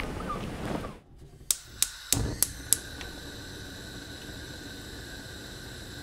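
Chirping for about the first second, then a cut to a handful of sharp clicks and clatters, followed by a steady machine hum with a faint high whine, like a kitchen appliance running.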